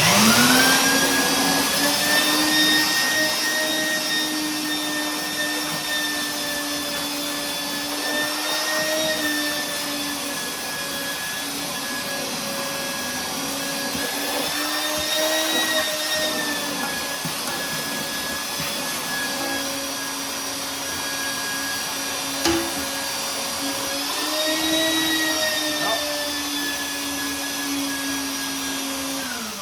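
Shop vac running, sucking the water out of a toilet tank. It switches on with a rising whine, holds a steady motor whine that lifts slightly in pitch a few times, and winds down at the end when switched off.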